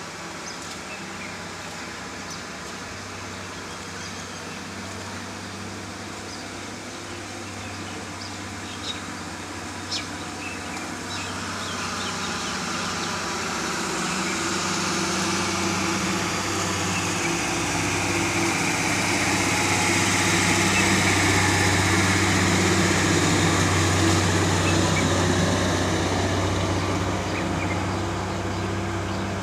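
A motor or engine running steadily with a low hum, growing louder over the middle of the stretch and easing off a little near the end. There are two brief clicks about nine and ten seconds in.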